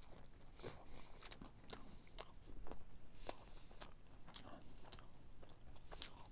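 Close-up chewing of a cheese-stuffed fried chicken fillet with a soft crust: irregular wet clicks and smacks of the mouth, several a second at times.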